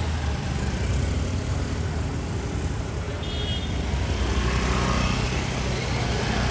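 Steady rumble of a road vehicle in motion, strongest in the low range, with a brief high tone a little past three seconds in.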